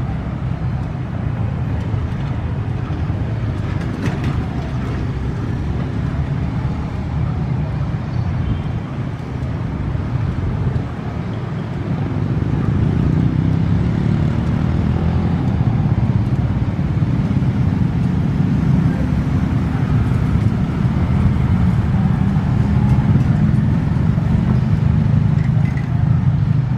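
Diesel-electric locomotive engine running with a steady low drone, growing louder about halfway through.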